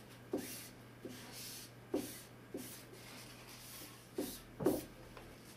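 A cloth rubbing over a graphics card's GPU in several short, faint strokes, wiping off the thermal grease, over a low steady hum.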